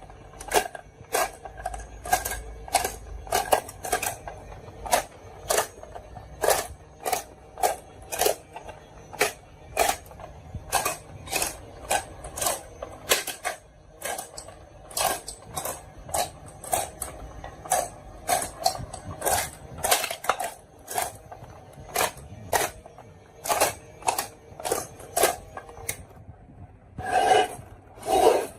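Marbles running down a marble run, clacking against the track in a quick irregular string of sharp clicks, two to four a second, with a denser rattle near the end.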